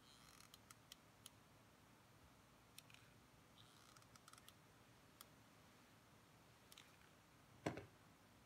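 Quiet handling of thin card: scattered small clicks and brief rustles of card sliding against card. About three-quarters of the way through, a single louder knock on the table is the loudest sound.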